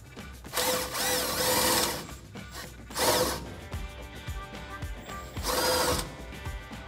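Impact wrench with a 21 mm socket running out a truck's lower strut bolt in three bursts: a long one about half a second in, a short one around three seconds, and another near six seconds.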